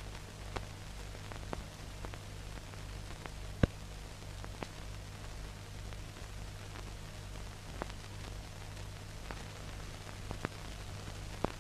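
Faint steady hiss with a low hum and scattered sharp clicks, the loudest about three and a half seconds in: surface noise of an old film soundtrack with nothing recorded on it.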